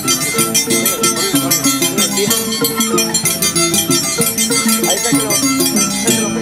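Violin and Andean harp playing a lively scissors-dance tune, with fast, regular metallic clinking of the dancers' iron scissor blades running through it.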